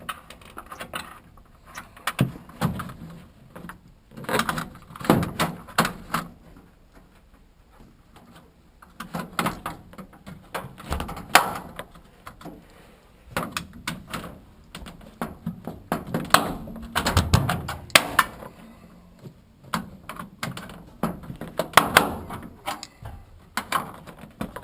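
Irregular knocks, clicks and rattles of a stackable washer-dryer's front control panel cover being pushed and worked against a stiff side latch.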